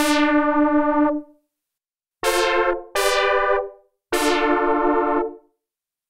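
Korg Mono/Poly V2 software synthesizer playing a brass preset: four separate brassy notes, each starting bright and quickly mellowing, the first and last about a second long and the middle two short, then silence near the end.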